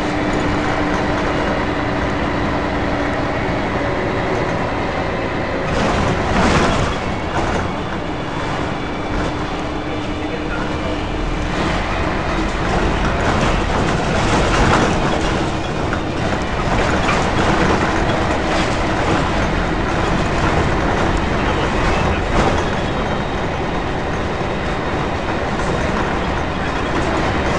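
Scania L113CRL bus heard from inside the saloon: its diesel engine running steadily, with rumble and rattling of the body and fittings. A few sharper knocks and jolts come through it.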